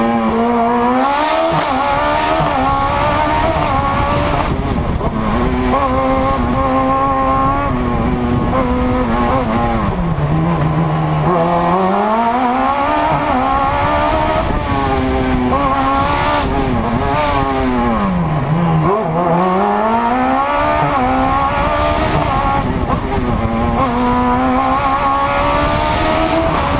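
A112 prototype race car engine at hard throttle, heard from inside the car. The revs climb repeatedly with quick gear shifts between, drop low twice under braking, and pick up again each time.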